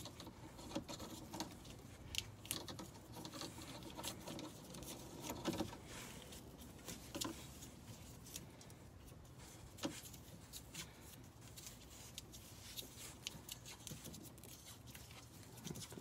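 Electrical tape being peeled off the roll and wrapped around a wire joint: faint, irregular crackling and ticking.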